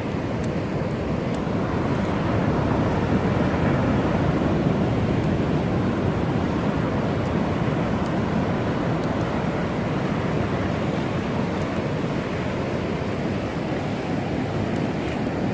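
Steady rush of surf breaking on a sandy beach, mixed with wind on the microphone, with a few faint crackles from a driftwood fire.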